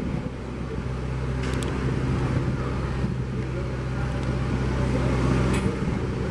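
John Deere utility tractor's diesel engine running steadily at low speed as it drives slowly, towing an empty utility trailer, with a couple of faint clinks.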